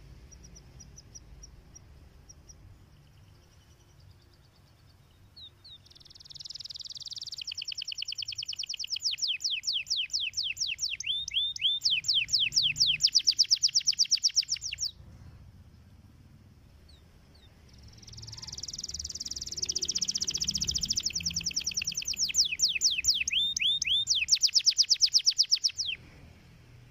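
Domestic canary singing two long phrases of rapid, repeated trills. The first starts about six seconds in, the second about two-thirds of the way through, and each stops abruptly.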